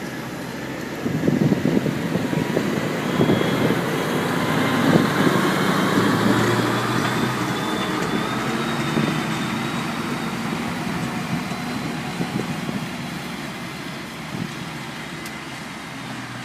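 Massey Ferguson tractor's diesel engine working under load while ploughing, growing louder about a second in, then slowly fading as it draws away.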